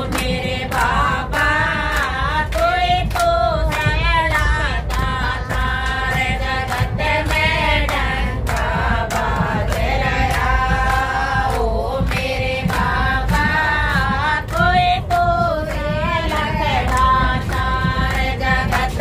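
Several women singing a song together, over a steady beat of sharp strokes about twice a second.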